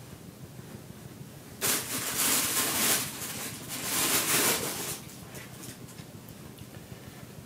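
Rustling of packaging being handled during an unboxing, loud for about three seconds starting under two seconds in, in two surges, then a few faint rustles.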